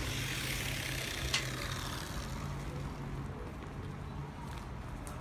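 Steady low engine hum of a running vehicle, with one sharp click just over a second in.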